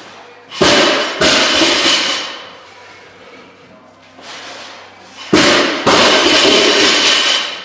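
A loaded barbell with rubber bumper plates is dropped onto a concrete floor twice. Each drop is a heavy thud, then a bounce about half a second later, then about a second of rattling plates and a ringing bar that fades out.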